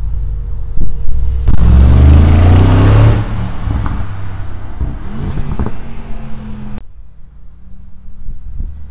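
Brabus G800's twin-turbo V8 revving hard as the G-Class accelerates away, loudest for about two seconds with rising pitch, then easing off as it moves into the distance. The sound drops away abruptly about seven seconds in.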